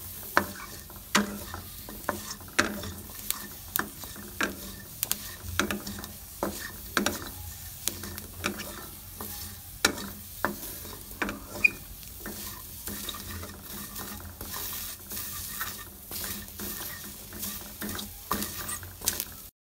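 A spatula scraping and knocking against a metal wok in repeated strokes, roughly one or two a second, as garlic cloves and shredded aromatics are stirred in the hot pan. A faint sizzle runs underneath.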